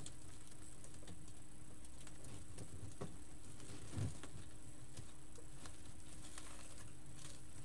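Faint rustling and light clicks of deco mesh being scrunched and pushed into a wreath frame by hand, with a soft bump about four seconds in.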